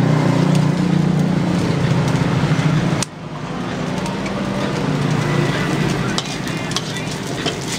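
A motor vehicle's engine running steadily close by, a low hum that drops off sharply about three seconds in and then builds again. Scattered light clicks sit over it.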